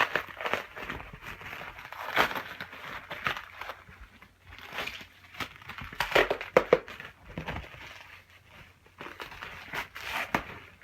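Packaging being handled and pulled off a boxed bicycle wheel: irregular crinkling, rustling and tearing with several louder crackles.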